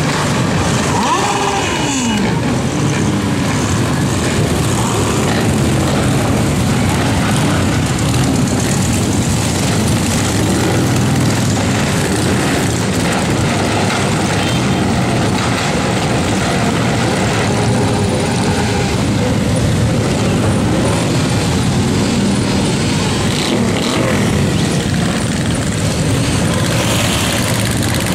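Dozens of motorcycles riding past slowly in a dense column, many engines running at once in a continuous din. Here and there one bike's engine note rises and falls as it passes or revs.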